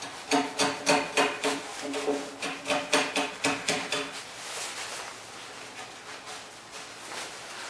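About a dozen quick hammer taps on a chisel, roughly three a second, each with a short ringing tone, as a timber joint is trimmed. The tapping stops about four seconds in.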